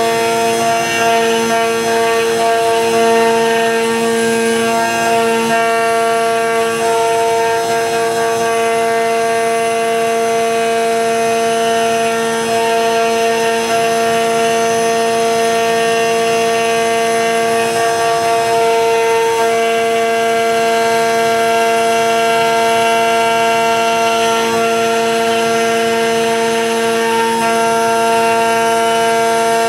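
CNC router spindle running as it mills a laminated Karri hardwood block in a roughing pass with a ball-nose cutter: a loud, steady whine made of several pitches together, some of them shifting slightly a few times.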